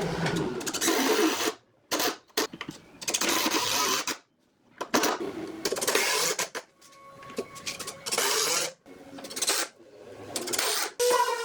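A small machine or power tool running in short bursts of one to two seconds, about six times, each burst starting and stopping abruptly.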